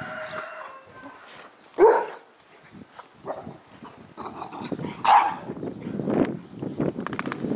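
Dogs at play: two short barks, about two and five seconds in, the first the louder, with scuffling and pawing on the dirt between.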